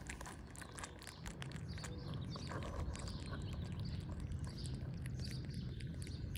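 Baby squirrel chewing on a piece of fruit held in its paws, heard close up as many faint quick clicks and smacks over a low steady rumble.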